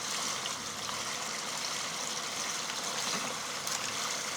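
Steady rush of water along a sailing yacht's hull as it moves through calm sea.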